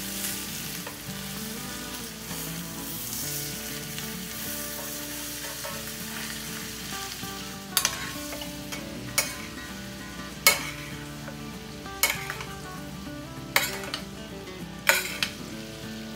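Cobia fillet sizzling in a pan of melting butter with rosemary. From about eight seconds in, a metal spoon clicks against the pan about every second and a half as the hot butter is basted over the fish.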